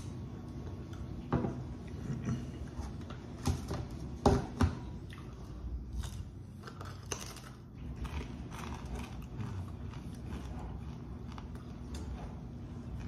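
Close-up eating sounds from a person chewing fried chicken: a few sharp crunches between about one and five seconds in, then quieter wet chewing and lip smacks.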